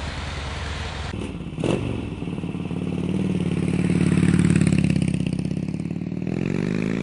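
Harley-Davidson V-twin motorcycle engine running and revving. A couple of sharp clanks come in the first two seconds. Then the engine swells to a peak about four seconds in, drops back, and revs up again near the end.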